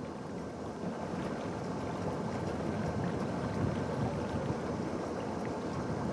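Steady outdoor rush of wind and water at a small-boat harbor, with a faint high tone held throughout.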